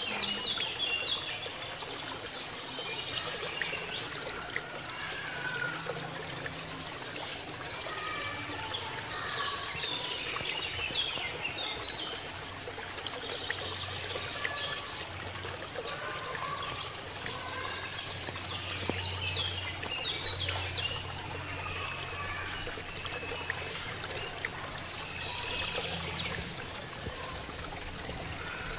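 Many short bird chirps over a steady trickling-water hiss, with a low hum joining about halfway through.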